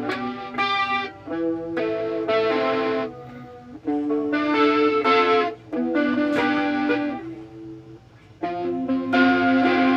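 Electric guitar played through a Mosky distortion pedal: a series of chords and short phrases with brief pauses between them.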